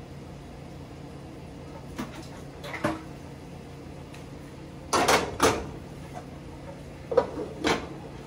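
Dishes and serving utensils knocking while peas and rice are spooned onto a plate. A few short knocks: a louder pair about five seconds in and another pair near the end, over a steady low hum.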